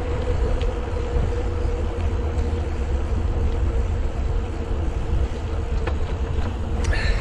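Steady wind rumble on the microphone and tyre noise from a mountain bike being ridden along a paved path, with a faint steady hum.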